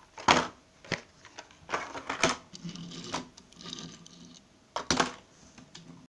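Hot Wheels cars in plastic blister-pack cards being handled and set down on a wooden table: a string of sharp taps and clacks of card and plastic against wood, with some rustling of the plastic. The loudest knocks come right at the start and again about five seconds in.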